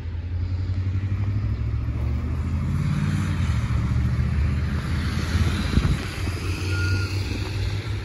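Road traffic on a wet, slushy street: a low engine rumble, with the hiss of tyres on the wet road swelling as a vehicle passes in the middle of the stretch.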